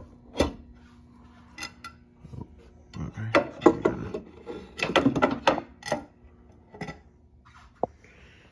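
Fluorescent tube being twisted out of its lamp holders and lifted out of the fixture: a string of clicks, scrapes and light clattering, busiest around the middle, with one sharp click near the end.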